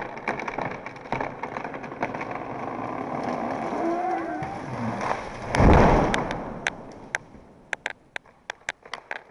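A felled tree coming down. Cracks and snaps of wood give way to a rushing sound that builds, then a single heavy crash as it hits the ground a little past halfway. Scattered snaps of branches follow as it settles.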